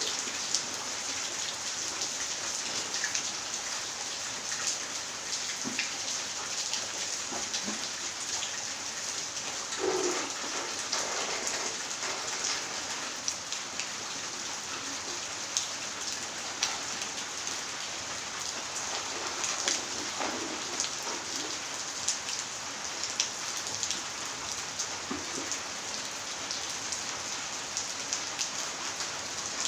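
Steady rain falling on a wet tiled porch and garden, an even hiss with many single drops ticking close by. A few louder patches of sound stand out, around ten and twenty seconds in.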